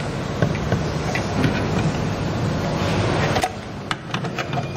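Clicks and light knocks of hands handling metal fittings and the plastic housing of a traffic light, over a steady background rumble that drops away abruptly about three and a half seconds in. A few sharper clicks follow as the panel cover is fitted.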